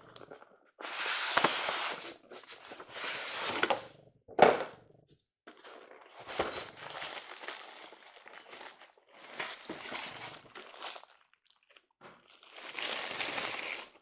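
Packaging rustling and crinkling in several bursts as a toy train boxcar is worked out of its snug cardboard box, white foam insert and plastic wrap, with one sharp knock about four seconds in.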